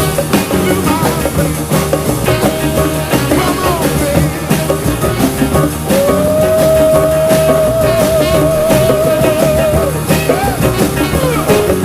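A 1960s-style band record playing, with drums, guitar and vocals. A long held note with vibrato comes in about halfway through and lasts about four seconds.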